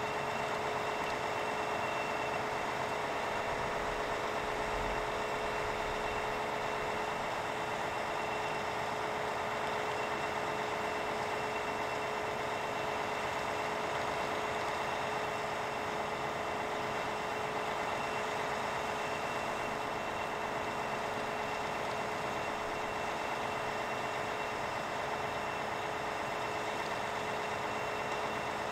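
Steady hiss and hum with two held tones while an 0-6-0 saddle tank steam locomotive is slowly turned on a turntable.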